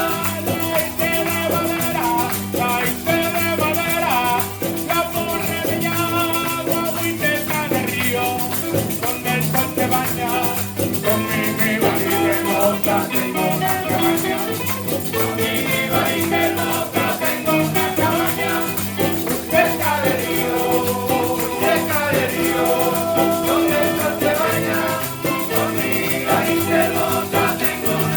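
Latin American group music: singing over instruments with rhythmic shaken percussion, playing steadily throughout.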